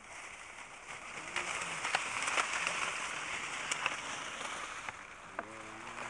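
Dry grass and brittle stems rustling and crackling as someone walks through them, a steady rustle with many small sharp snaps.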